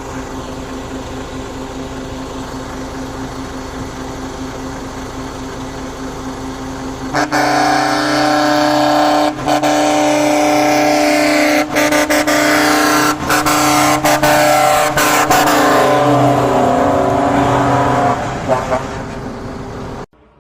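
Aftermarket Basuri multi-tone horn sounding. A quieter steady tone holds for about the first seven seconds. Then a much louder chord of several horn pitches blares in long blasts, broken by brief gaps, and fades out near the end.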